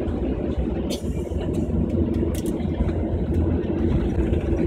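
Jet airliner's engines running at taxi power, heard from inside the passenger cabin: a steady low drone, with a couple of brief clicks about a second in and midway through.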